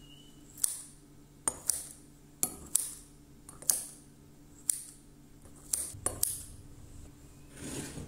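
Kitchen scissors snipping through soaked rice vermicelli: about ten short, sharp snips at an uneven pace, some in quick pairs. A softer, duller noise follows near the end.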